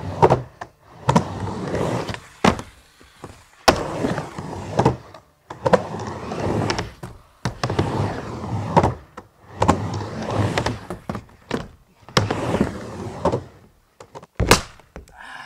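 Skateboard wheels rolling on a wooden mini ramp, rising and fading with each pass back and forth, broken by sharp clacks of the board and trucks striking the ramp. A loud smack comes about a second before the end.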